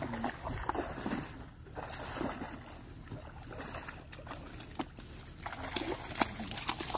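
A hooked Chinook salmon thrashing at the surface close to the bank, splashing and sloshing the water in irregular bursts.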